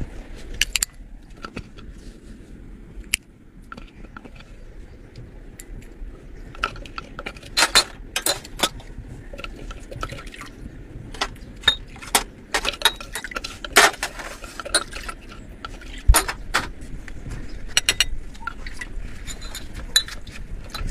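Irregular clinks and light knocks of kitchen utensils: a spoon working against a wooden vessel and metal dishes being handled, busiest in the middle of the stretch.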